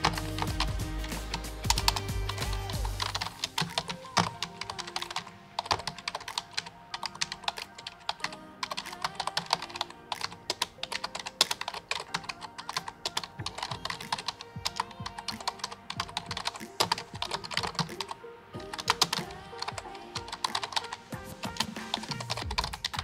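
Fast, irregular key clicks of typing on a laptop keyboard over background music. The music's bass drops out about three and a half seconds in.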